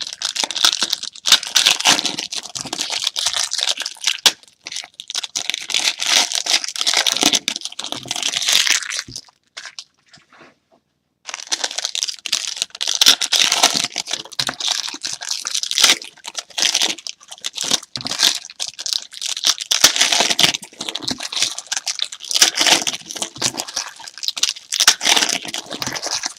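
Plastic wrapping of a trading card box being torn open and crumpled, a long run of irregular crackling and rustling broken by about two seconds of silence near the middle.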